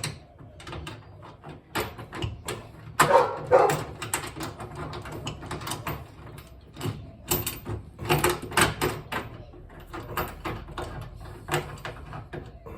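Irregular clicks, clanks and knocks of hand tools and metal parts while the ladder rack is bolted to the ute, with louder clusters of knocks twice.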